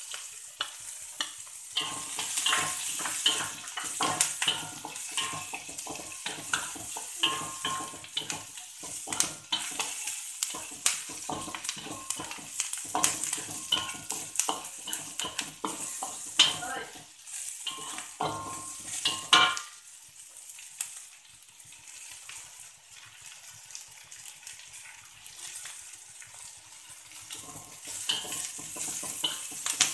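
Wooden spatula scraping and knocking against a metal wok as sliced shallots, green chilies and dried anchovies (ikan bilis) sizzle in hot oil. The stirring strokes mostly stop about twenty seconds in, leaving a quieter sizzle.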